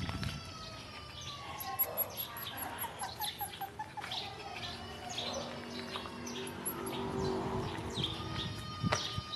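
Chow Chow puppies whining: many short, high-pitched chirps from several pups at once, with a few longer whines, one falling slowly at the start.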